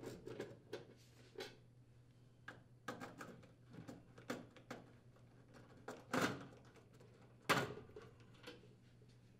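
Flathead screwdriver unthreading the sheet-metal screws that hold a furnace's blower assembly support rails: faint, scattered metal clicks and scrapes, with two louder clicks about six and seven and a half seconds in.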